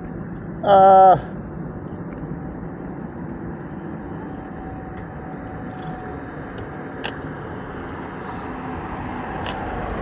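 Steady street traffic noise, with a loud half-second pitched tone about a second in and a few sharp clicks later on.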